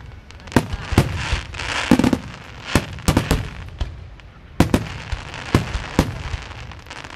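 Fireworks going off: irregular sharp bangs, about one or two a second, with crackling between them.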